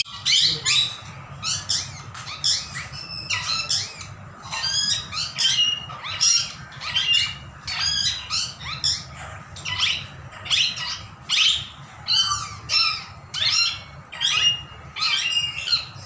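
Parakeets calling over and over with short, shrill squawks, about one or two a second, over a faint low hum.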